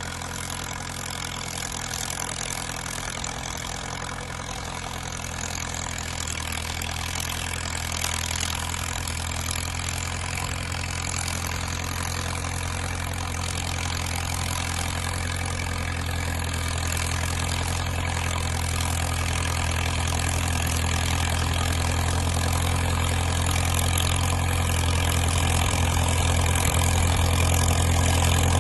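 Diesel engine of a Caterpillar crawler dozer running at a steady speed with a low, even hum, growing gradually louder over the whole stretch.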